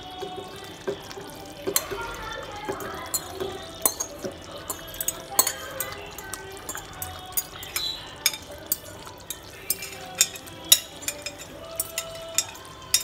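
A spoon clinking and scraping against a glass bowl in many quick, irregular taps as boiled mochai beans are pushed out of it, with the beans and their cooking water sliding into a pot of curry.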